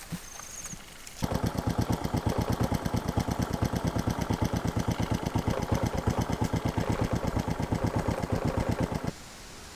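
Small single-cylinder step-through motorcycle engine idling, a steady rapid putter of about a dozen beats a second. It starts suddenly about a second in and cuts off abruptly about a second before the end.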